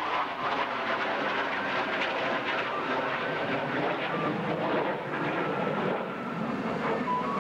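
Military fighter jet's engines in flight, a steady rushing noise with no clear pitch.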